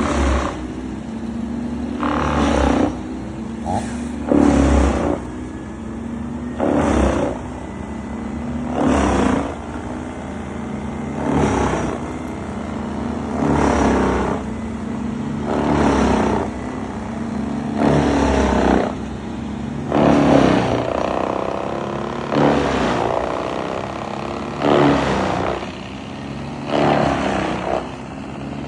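Petrol engine of tree-removal equipment running steadily, with a louder, harsher cutting surge about every two seconds.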